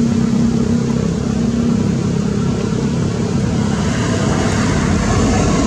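Steady motor-vehicle engine noise, with a low hum that fades about two seconds in.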